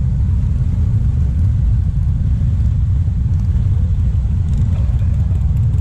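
Low, steady rumble of a large group of motorcycle engines idling and pulling away slowly together.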